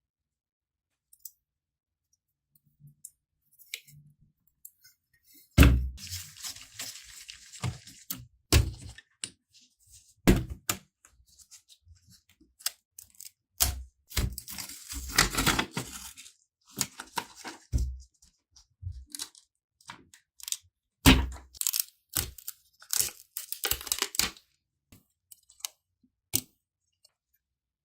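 Hands working on a laptop: scattered clicks and knocks, with a few stretches of rubbing or scraping noise lasting a second or two.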